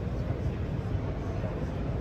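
Steady low background rumble of a large exhibition hall, with faint distant voices mixed in.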